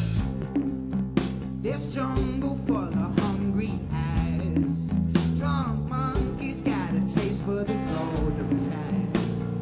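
Live rock band playing a psychedelic soul-rock song: a man singing lead over drums, electric bass and electric guitar, with a woman's backing vocal, and regular drum hits through it.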